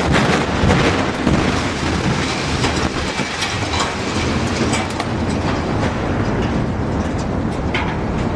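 Building collapsing in an explosive demolition: a heavy, steady rumble with a dense rattle of falling debris, loudest at the start and easing slightly.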